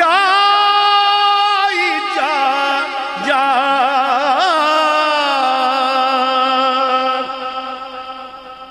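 Solo male voice singing a naat without instruments through a microphone and loudspeakers, drawing out the closing word of the line in long held notes with a wavering pitch. The last note dies away over the final two seconds.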